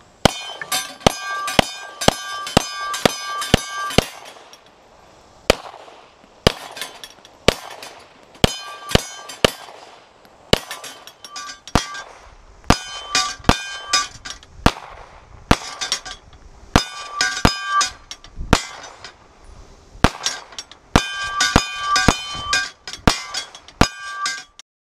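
Pistol shots striking a steel IPSC-silhouette flapper target, each hit followed by the ring of the steel plate. The shots come in quick strings of several, about two or three a second, with short pauses between strings.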